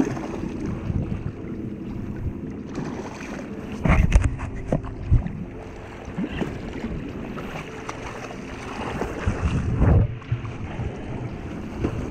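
Wind buffeting the microphone over lapping shallow water, broken by splashing from a big hooked bluefish thrashing at the surface; the loudest bursts come about four seconds in and again near ten seconds.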